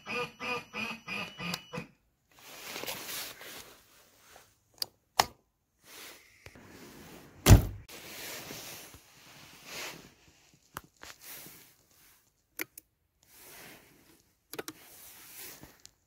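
An electronic sound effect, set off by remote control, plays a rapid run of short pitched tones, about four a second, and stops about two seconds in. Then come handling rustles and clicks, with one loud thump about halfway.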